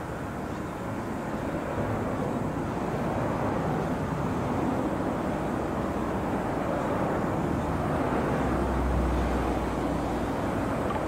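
Distant steady engine drone, growing gradually louder, with a deeper hum briefly joining in near the end.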